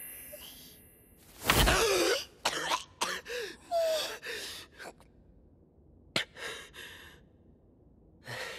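A young girl's voice in short, shaky breaths and sob-like gasps, the loudest a sharp catch of breath about a second and a half in. Broken, halting vocal sounds and a softly spoken word follow, with a few smaller breaths near the end.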